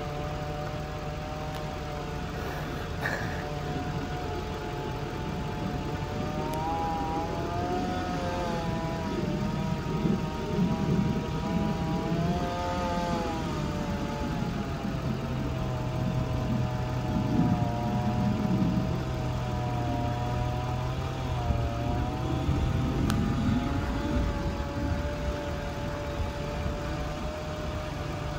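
An engine running steadily, its pitch wavering slowly up and down, over a lower steady hum.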